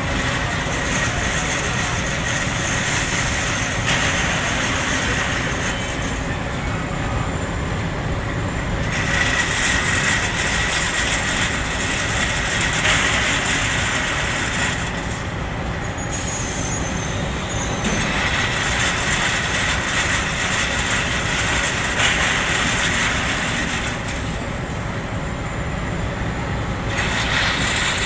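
Automatic ceramic-block loading machinery for a fast dryer running steadily, a constant mechanical rumble with stretches of louder hissing rattle that come and go every few seconds.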